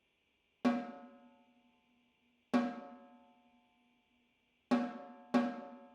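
Kitano K-TISD1265-3.2 snare drum struck four single strokes, each left to ring and die away, the last two coming closer together.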